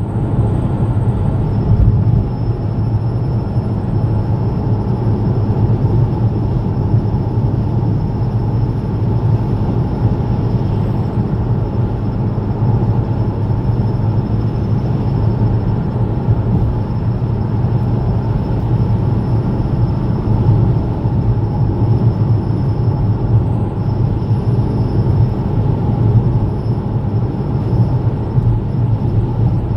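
Vauxhall Mokka on the move: a steady low drone and rumble, with a faint steady high whine above it. This is the strange noise the owner thinks may be coming from the back wheels, though he is not sure.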